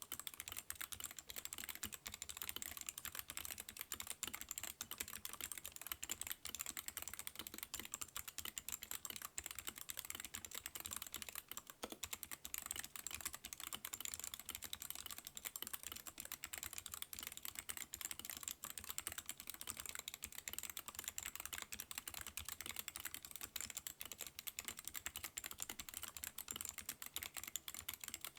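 Continuous typing on a mechanical keyboard with Outemu low-profile 'Snapspring' clicky switches and PBT pudding keycaps, a steady stream of sharp clicking keystrokes.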